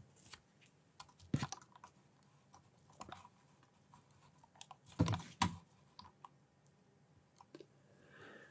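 Sparse light clicks and taps of a stylus on a writing tablet as handwriting is put down, with a louder cluster of taps about five seconds in.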